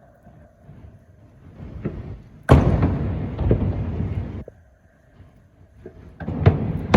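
Aerial fireworks exploding: a sharp boom about two and a half seconds in, followed by about two seconds of rumbling, crackling bursts, then another run of booms near the end.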